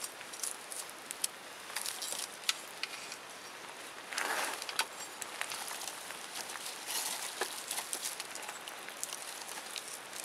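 Wood campfire crackling, with many sharp irregular pops and snaps over a steady hiss, and a louder hissing surge about four seconds in.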